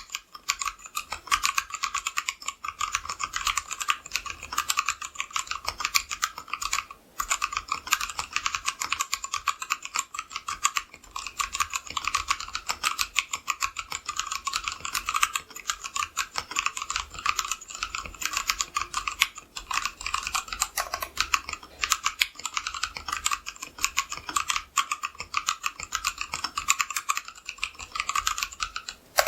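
Fast, continuous typing on a Tofu60 mechanical keyboard with a brass plate, stock unlubed Gateron Yellow linear switches and XDA-profile keycaps. The keystrokes are dense and steady, with one brief pause about seven seconds in.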